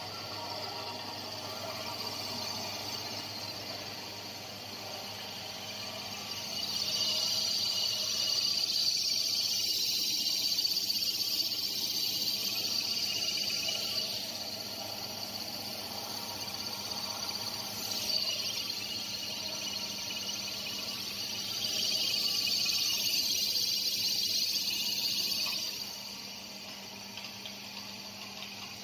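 Fish feed pellet extruder running steadily, a constant motor hum under a hiss that swells louder for several seconds, twice.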